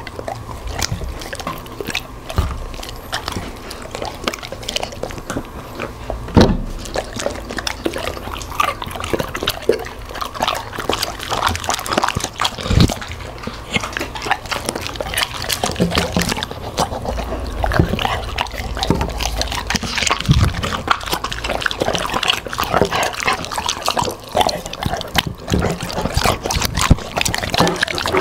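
A golden retriever and a black Labrador retriever eating hand-fed broccoli, carrot, pineapple and other food: irregular quick crunches and chewing, mixed with wet mouth and licking sounds, close to the microphone.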